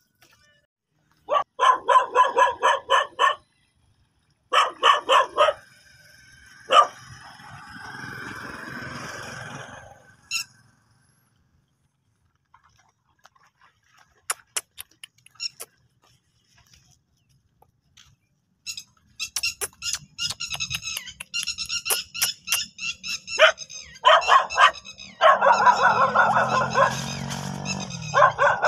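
Dogs barking in quick runs of several barks a second. There is a quieter stretch in the middle, then near-continuous barking through the last ten seconds.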